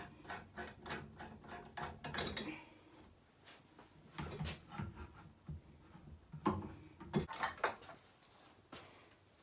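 Clicks, knocks and clunks of metal and plastic parts as a gas boiler's gas connection is undone and its fan and burner door assembly is worked loose and pulled out. A quick run of clicks comes in the first couple of seconds, then scattered knocks, the loudest a few clunks past the middle.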